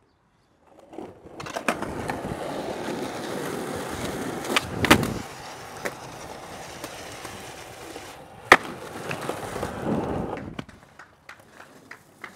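Skateboard rolling, with a couple of sharp clacks of the board about five seconds in and a single loud crack of the board about eight and a half seconds in. The rolling stops near the end.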